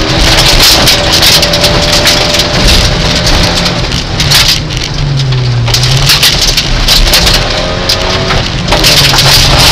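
Rally car at speed on a gravel stage, heard from inside the cabin: the engine is under hard load, its pitch dipping and climbing again a couple of times, over a constant hiss and patter of gravel thrown against the underbody and wheel arches.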